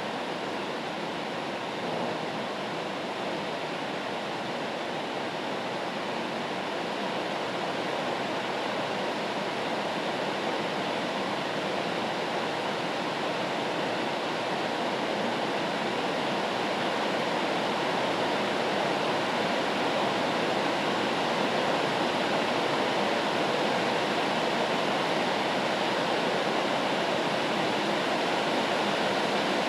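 Steady rain as a white-noise track: an even hiss with no separate drops or pauses, growing slightly louder over the second half.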